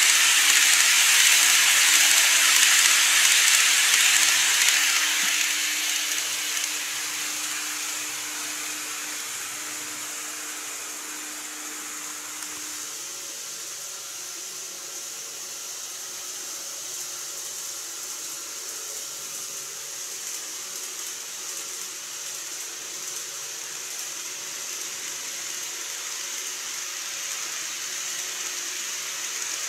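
N-gauge model trains running on plastic viaduct track: a loud rolling hiss of wheels on rail with a steady motor hum, fading over the first several seconds as the trains move away. A fainter steady running noise continues, and the hum stops about twelve seconds in.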